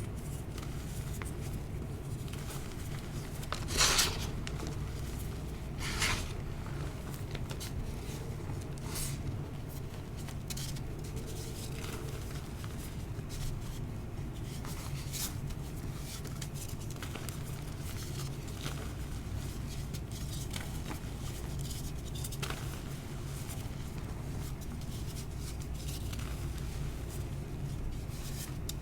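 Dyed gym chalk crumbling and crunching under fingers: scattered soft crackles and crunches, the loudest two about four and six seconds in, over a steady low hum.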